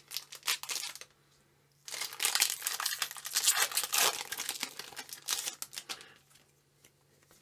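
A trading-card booster pack's foil wrapper crinkling and tearing as it is opened: a short spell, then a louder, longer one starting about two seconds in that fades out near the end.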